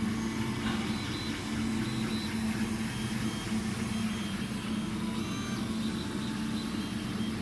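MINGDA MD-6L large FDM 3D printer at work: its stepper motors whine in short tones that keep jumping in pitch as the print head moves, over a steady low hum.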